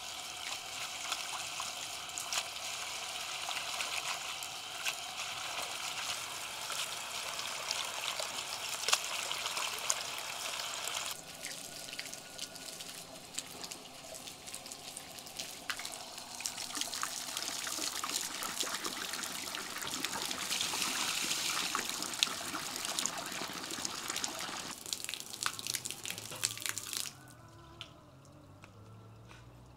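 Water running from an outdoor tap into a plastic bowl of herbs, splashing as hands stir and rinse the greens. The running water stops near the end.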